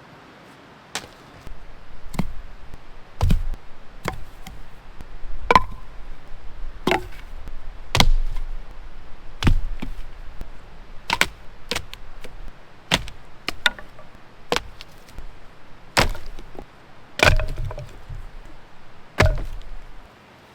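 Wood being chopped: more than a dozen sharp blows at an uneven pace, roughly one a second.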